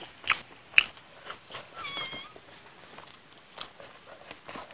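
Eating sounds of a man chewing rice and curry with his mouth: scattered wet smacks and clicks, the sharpest just under a second in. About two seconds in, a brief high wavering call is heard over them.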